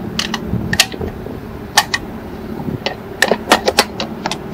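Sharp metallic clicks as .308 cartridges are pressed one at a time into a rifle magazine, followed by a quick run of clicks and clacks from handling at the rifle about three seconds in, over the steady hum of a large fan.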